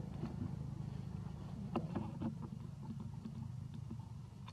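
Steady low motor hum, with a few short clicks and faint squeaks a little before and after the two-second mark.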